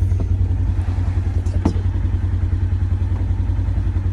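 Polaris Ranger utility vehicle's engine idling with a steady, rapidly pulsing low rumble, waiting to pull away.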